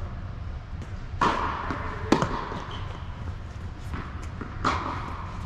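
Tennis ball being struck by rackets and bouncing on an indoor hard court during a rally, a handful of sharp pops echoing in the hall, the loudest about two seconds in. A steady low hum runs underneath.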